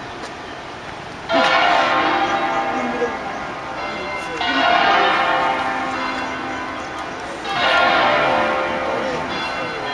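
Church bells of the Basilica of Sant'Anastasia rung in a concert in the Veronese system: three loud strokes about three seconds apart, each left ringing into the next.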